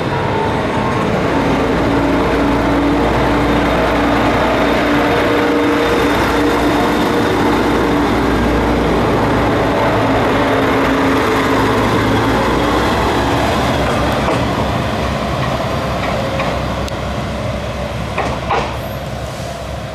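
Isumi Railway diesel railcars, KiHa 20-1303 and an Isumi 300-type, pulling away close by, their diesel engines running under power with a steady drone. The sound tapers off over the last few seconds as the train draws away.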